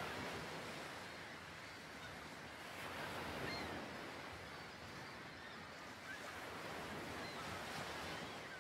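Steady rush of ocean waves, with a few faint, short chirps scattered through it.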